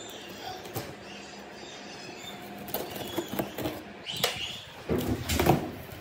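A knife cutting packing tape on a cardboard shipping box, with scattered scrapes and taps from about three seconds in. The cardboard crackles and knocks loudest near the end as the box is handled.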